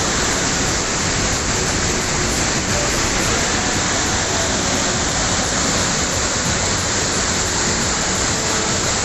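Waterfall in heavy flow: a loud, steady rush of falling water.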